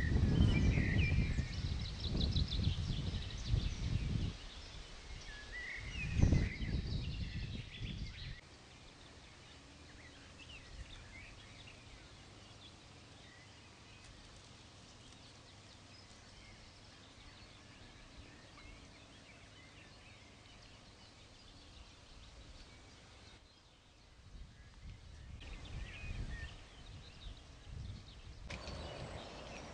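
Wild birds chirping and singing, with gusts of wind rumbling on the microphone and rustling leaves, strongest in the first few seconds, dying down after about eight seconds and picking up again near the end.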